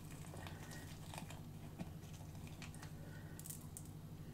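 Faint rustling and small clicks of a paper wagon load being handled and pressed into a model railway wagon by hand, over a steady low hum.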